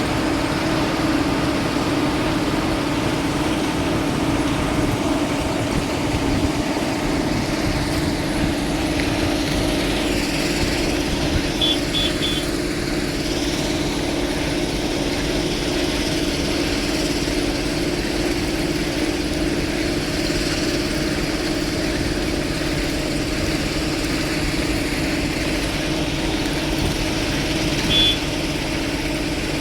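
Excavator's diesel engine running steadily. Three short high beeps come in quick succession about twelve seconds in, and one more near the end.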